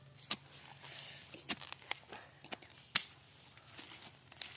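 A digging tool and hands working loose garden soil: scattered short knocks and scrapes as soil is chopped, loosened and pushed into the planting hole. The loudest knock comes about three seconds in.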